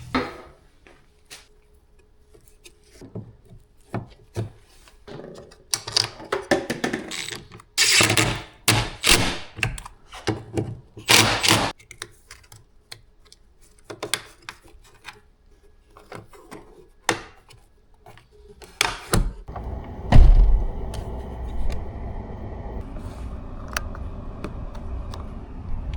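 Scattered clicks, knocks and rubbing of hands working on car parts. About 20 s in comes a single heavy thunk, followed by a steady low hum.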